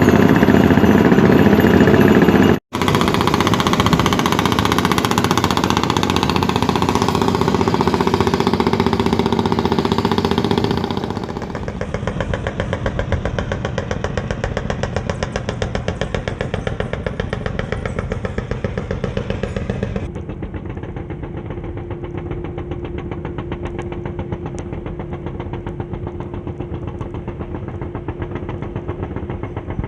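Engine of a traditional wooden fishing boat running with a fast, steady beat, cut off for a moment near the start and quieter in the later part.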